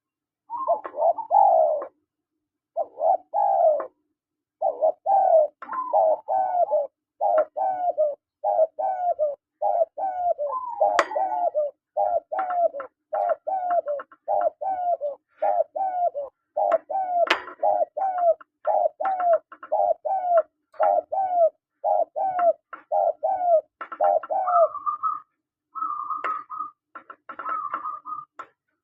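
Spotted doves (tekukur) calling: a long run of short falling coos, about one and a half a second, changing near the end to a few level, higher-pitched notes.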